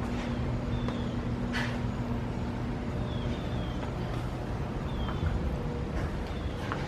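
Car on the road: a steady low engine and road rumble, with a faint short high squeak coming back every second or two.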